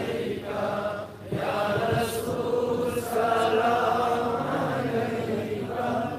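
Chanted Urdu devotional salaam (naat) sung in long, drawn-out notes, with a short break for breath about a second in.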